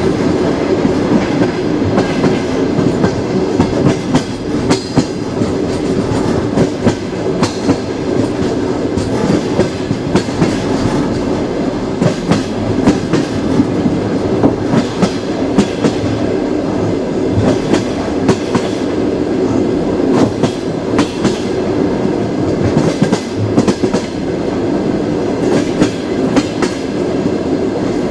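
Passenger train wheels clattering over the rails: a steady rumble with frequent sharp clicks and knocks.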